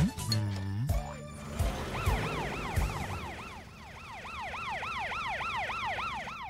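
A siren yelping: a fast rise-and-fall wail repeating about three times a second, starting about two seconds in and cutting off just before the end. In the first second a brief falling tone comes before it.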